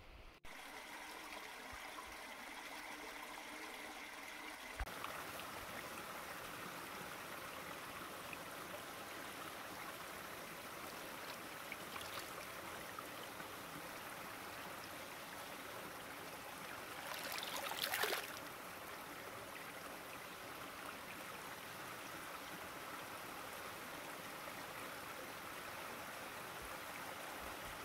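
Running water of a stream, a steady rushing that fills out about five seconds in, with a brief louder surge about eighteen seconds in.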